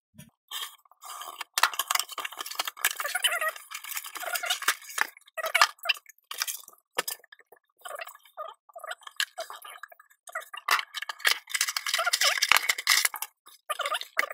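A cardboard shipping box being torn open by hand: packing tape and cardboard ripping and packaging crackling in several spells, then a thin cardboard retail box being handled and opened.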